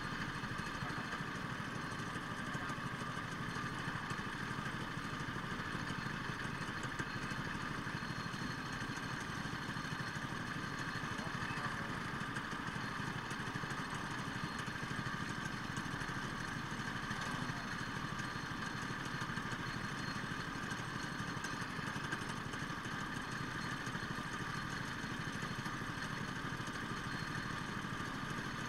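Go-kart engines idling steadily, with no revving.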